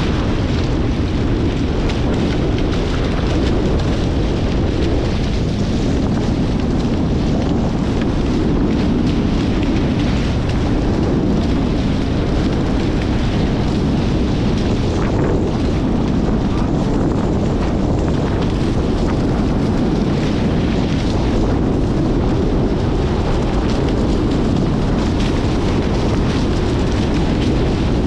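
Strong wind buffeting a GoPro's microphone on a Hobie 16 catamaran under sail, a steady, heavy low rumble with no let-up.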